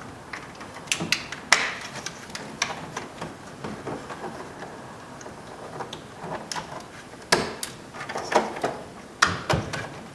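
Sharp plastic clicks and knocks, irregular and a few at a time, as wiring connectors are plugged back in and door trim parts are handled and snapped into place.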